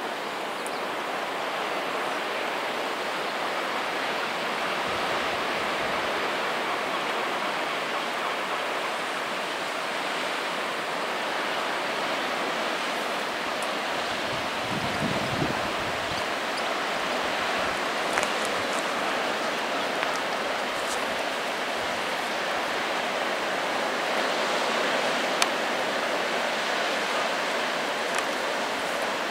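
Steady rush of sea surf washing over the rocky foreshore, with a brief low rumble about halfway through.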